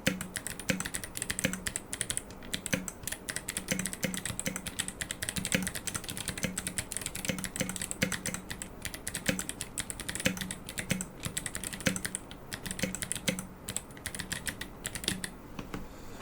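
Fast, continuous typing on a GK64 aluminium mechanical keyboard with clicky Kailh Box Jade switches and SA-profile keycaps: a dense, irregular stream of sharp key clicks with a deeper thud every second or so. The typing stops about a second before the end.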